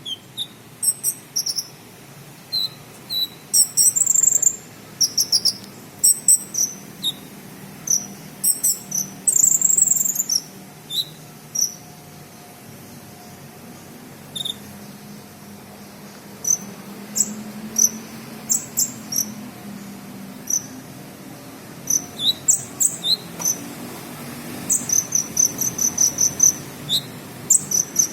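Sunbird singing a song laced with cricket-like chirps learned by mimicry: short high chirps in scattered bursts, ending in a fast run of repeated chirps. A faint low hum runs underneath.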